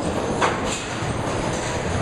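Duckpin bowling alley din: a continuous rumble of balls rolling on wooden lanes and pinsetter machinery. A sharp clack, like pins or a ball striking, comes about half a second in, with a lighter one shortly after.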